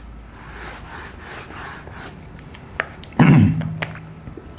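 Whiteboard duster rubbing back and forth across a whiteboard in several wiping strokes. About three seconds in there is a short vocal sound from the man, louder than the wiping.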